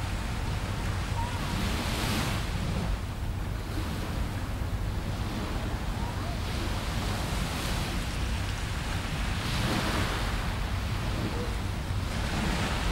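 Small waves breaking and washing onto the beach, the hiss swelling every two to three seconds, over a low rumble of wind on the microphone.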